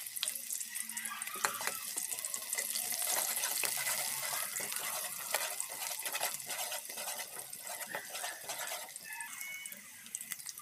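Sliced shallots sautéing in hot cooking oil in a wok: a steady crackling sizzle, with a metal spatula stirring them now and then.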